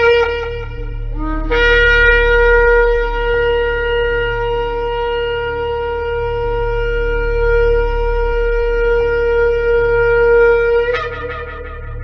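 Shofar (ram's horn) being blown: a blast ends just after the start, a brief lower note follows, then one long held blast of about nine seconds that breaks higher and fades near the end. A steady low hum runs underneath.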